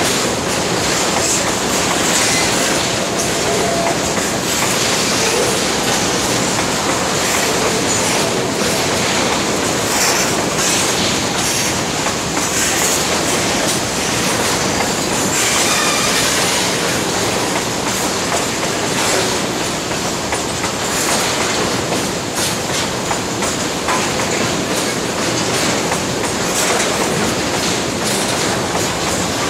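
Metre-gauge freight train of covered hopper wagons rolling past: steel wheels clattering over the rail joints in a steady, loud rumble, with now and then a faint brief wheel squeal.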